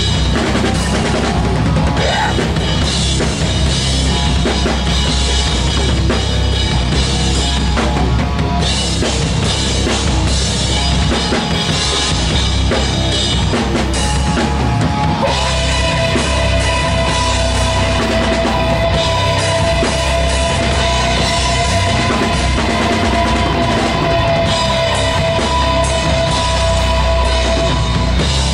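Rock band playing instrumental rock: drum kit with bass drum and snare under electric guitar and bass guitar, no singing. From about halfway, two long held high notes ring steadily over the band.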